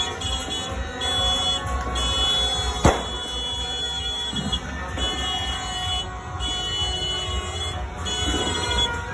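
A single sharp firecracker bang about three seconds in, over a busy street din. Throughout, a high steady tone sounds in on-off stretches, like an electronic alarm or buzzer.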